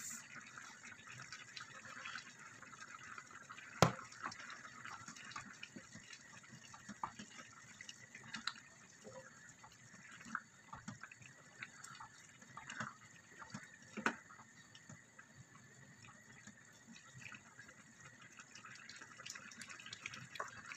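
Pasta and vegetables in tomato sauce simmering in a saucepan, with faint bubbling and scattered small pops, stirred with a wooden spoon. A sharp knock about four seconds in and a softer one near the middle.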